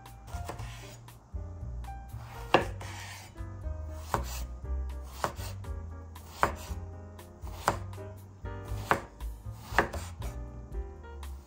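Chef's knife chopping aubergine into chunks on a wooden cutting board: a crisp cut ending in a knock of the blade on the board, about once a second, over background music.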